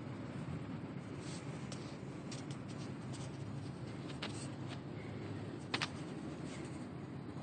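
Handling noise from a handheld phone camera: scattered small clicks and rubs, with a sharp double click near six seconds in the loudest, over a steady low background hum.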